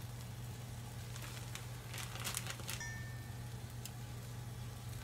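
Faint sizzling and crackling of egg cooking in oil in a rectangular omelette pan over a steady low hum, with a few brief crackles about two seconds in.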